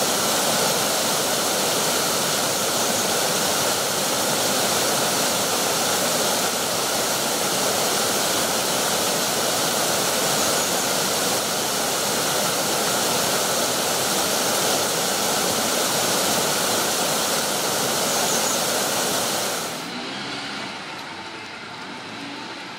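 Rushing mountain stream, white water tumbling over rocks in a steady, loud rush that cuts off sharply near the end, leaving a much quieter background.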